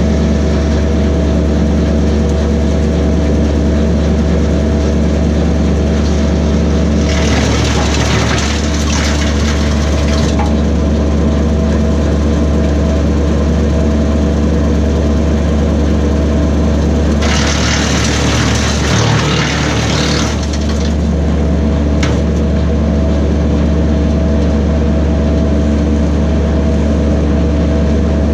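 Kubota B2601 compact tractor's diesel engine running steadily, driving a BECO 4-inch PTO wood chipper. Twice, about a quarter of the way in and again past the middle, a branch goes through the chipper with about three seconds of loud chipping noise over the engine.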